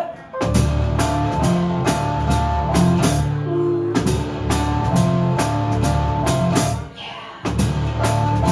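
Instrumental break in a rock song: drum kit and guitar playing without singing. It stops briefly just after the start and again about seven seconds in.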